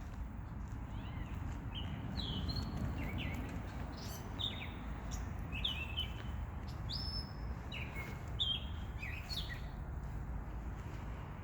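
A songbird calling from a bush at night: a run of short, varied whistled notes, many sliding down in pitch, in loose groups, over a steady low rumble of city background noise.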